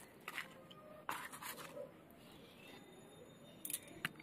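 A few short, quiet crisp rustles and scrapes of food being served onto a banana leaf: fried puris set down and a steel spoon of potato curry, the loudest about a second in and two more near the end.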